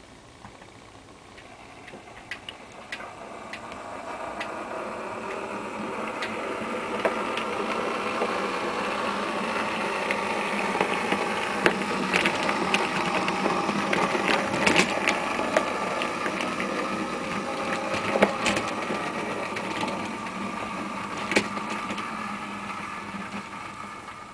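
Model railway locomotive, a BR Class 08 diesel shunter model pulling a wagon, running past on the track: its electric motor running with scattered clicks from the wheels on the rails. It grows louder as it approaches, is loudest mid-way, then fades as it moves away.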